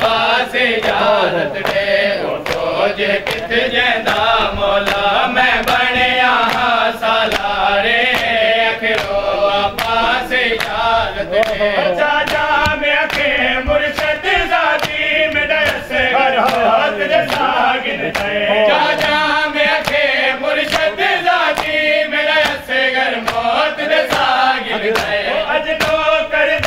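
A group of men chanting a noha in unison. Under the chant is a steady rhythm of sharp slaps, from open hands striking bare chests in matam.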